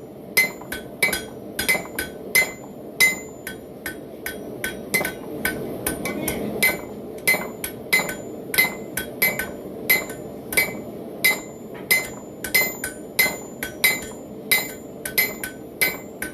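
Hand hammer forging a railroad-spike knife blade on a Hay Budden anvil: steady blows about three a second, each with a short metallic ring, over a steady low rush.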